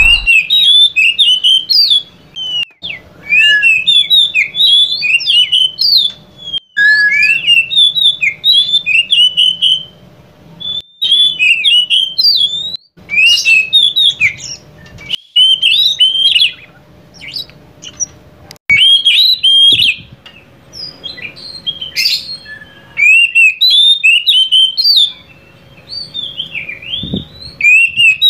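Oriental magpie-robin (kacer), the Mentawai form, singing: a rapid, varied song of chirps, whistles and rising and falling notes. The song comes in runs of a few seconds broken by short pauses.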